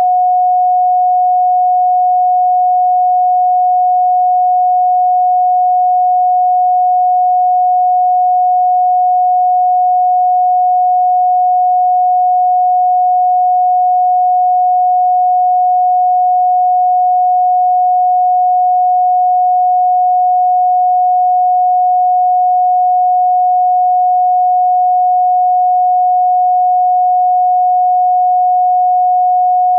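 A steady, electronically generated pure sine tone at about 728 Hz, one pitch with no overtones, held without change.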